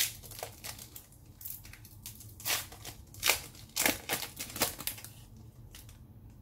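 Foil trading-card pack wrapper crinkling and tearing as it is pulled open by hand, in a run of short crackles, the loudest about three seconds in.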